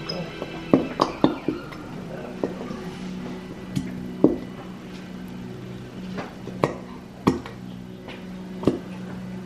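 Knocks and taps of a glue bottle and bowls being handled, about a dozen spread irregularly, over quiet background music.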